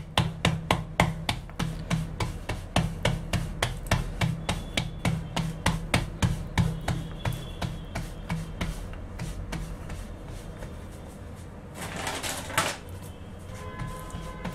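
Palms patting a disc of bajra (pearl millet) dough flat by hand on a floured wooden rolling board: a quick run of soft slaps, about four a second, that thins out after about nine seconds.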